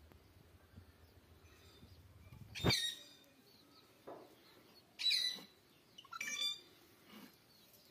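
Three short bird calls, the first the loudest, about a second or two apart.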